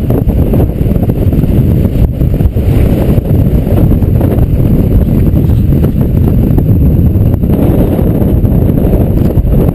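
Strong wind buffeting the microphone: a loud, constant low rumble that surges and drops with the gusts.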